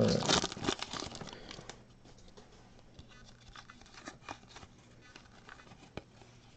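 Foil trading-card pack crinkling as the cards are pulled out of it, dying away about two seconds in. After that, faint small clicks of the cards being flipped through by hand.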